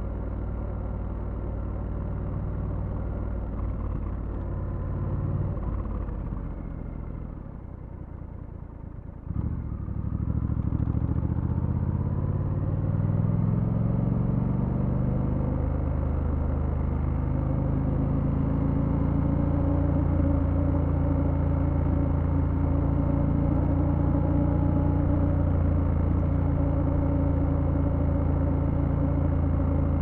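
Triumph Scrambler 1200 X's 1200 cc parallel-twin engine under way. It eases off and falls in pitch for a few seconds. About nine seconds in it picks up sharply and accelerates, its note rising, then settles into a steady cruise.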